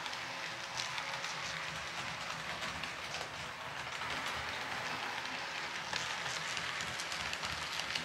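H0-scale model SU46 diesel locomotive and coach running along the layout's track: a steady whirring rattle with fine rapid clicking of the wheels over the rails.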